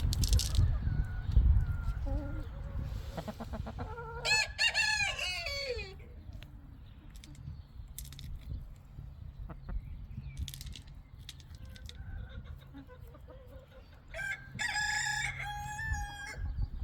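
A rooster crowing twice, once about four seconds in and again near the end, each crow a couple of seconds long, with softer hen calls between.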